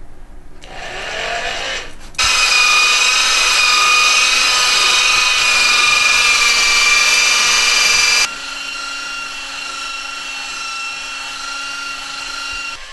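A small electric motor running with a steady high whine made of several tones. It cuts in abruptly about two seconds in, after a rising hiss, and about six seconds later drops to a quieter, steady whine.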